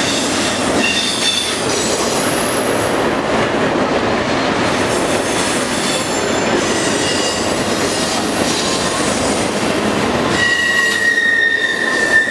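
Double-stack intermodal freight train's well cars rolling past, a loud, steady rumble of steel wheels on rail. Short high wheel squeals come and go, and about ten seconds in a flange squeal starts and holds a steady high pitch.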